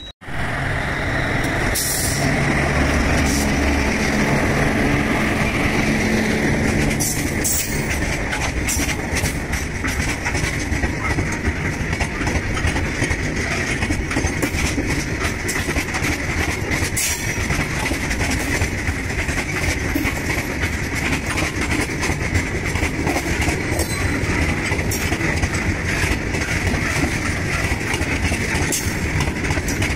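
Freight train of open-top steel coal wagons passing close by: a loud, steady rumble of wheels on rail, with a continual clatter of clicks as the wheelsets cross rail joints.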